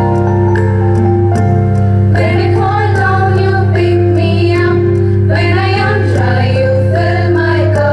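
Female voices singing a devotional prayer song over steady, sustained instrumental chords and a low drone; the voices come in about two seconds in.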